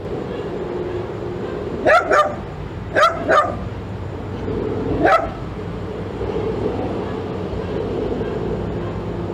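A dog barking five times: two quick pairs of sharp barks, then a single bark, over a steady background hum.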